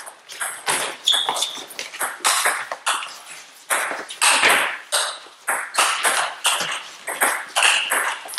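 Table tennis rally: the ball clicking off the bats and bouncing on the table in a quick back-and-forth, about two hits a second, each click ringing briefly in the hall.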